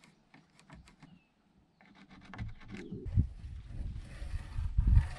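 Faint light clicks and taps of a pencil and metal square on a pine board. About two seconds in, a louder irregular low rumbling with a hiss over it takes over, swelling twice.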